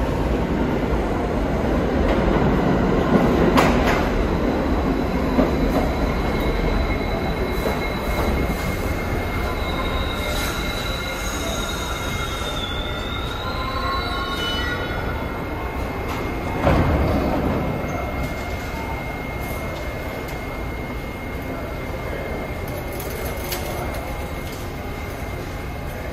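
New York City subway train running on steel rails: a steady rumble with a constant high whine, higher wheel squeals through the middle stretch, and two thumps, one early and one about two thirds through.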